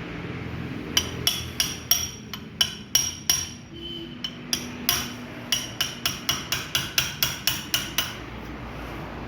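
Hammer blows ringing on metal, about three a second with a short pause midway, driving a new bush into a Maruti Alto 800 steering rack.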